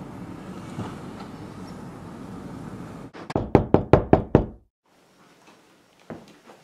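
Steady background noise, then about three seconds in a rapid run of about seven loud knocks on a door.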